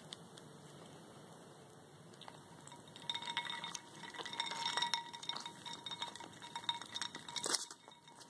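Ice cubes clinking against a ceramic water bowl and sloshing in the water as two ferrets paw and nose at them. Each knock leaves the bowl ringing. The clinking starts about three seconds in and ends with one loud knock near the end.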